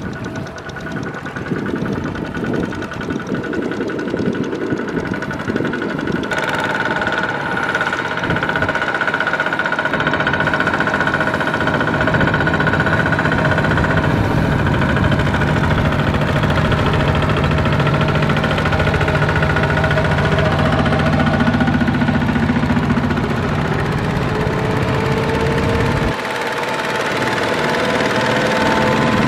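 Kubota two-wheel walking tractors' single-cylinder diesel engines chugging under load as they pull rice-laden trailers through paddy mud, getting louder as they come closer.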